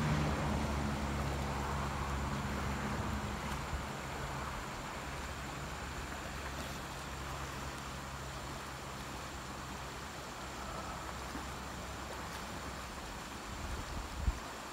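Steady rush of a shallow, rocky creek flowing over stones. A low engine-like hum fades out over the first few seconds, and a couple of short dull bumps come near the end.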